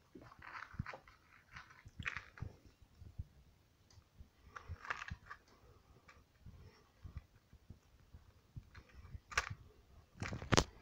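Faint scattered rustling and soft knocks, with a few sharper clicks near the end.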